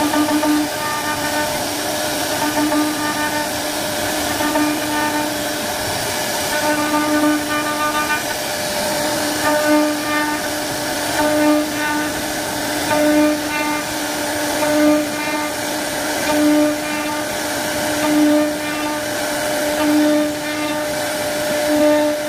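CNC router spindle whining steadily as its bit carves a wooden panel, with a hiss of cutting over a steady hum. The sound swells and eases in a regular rhythm, about every one and a half to two seconds.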